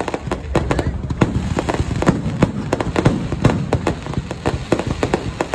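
Fireworks going off: many sharp bangs and crackles, several a second at irregular spacing, over a low rumble.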